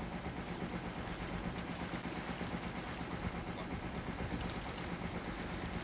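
Boat's engine humming steadily while under way, with wind and water noise.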